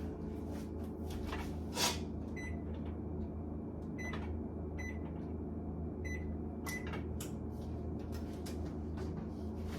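Short electronic beeps from an oven's control panel, five button presses spread over a few seconds as the oven is set to 330 °F, over a steady electrical hum. A single knock comes about two seconds in.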